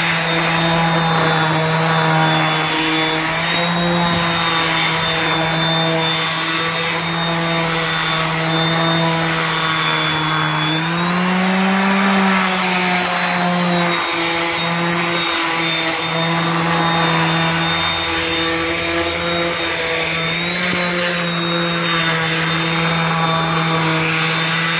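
Orbital sander with 80-grit paper running steadily against a western red cedar carving, a steady motor hum and high whine over the rasp of the paper on wood. The motor's pitch rises briefly about halfway through as the load on the pad changes.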